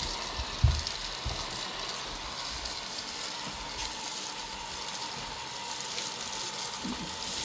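Ecovacs Deebot N79 robot vacuum running, a steady hiss with a faint motor whine as it sucks up scattered rice grains, which rattle through it. A single low thump about two-thirds of a second in.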